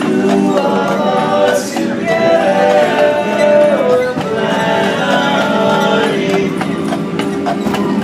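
Barbershop quartet singing a cappella in close harmony, several male voices holding chords together, with a horse's hooves clopping on the street underneath.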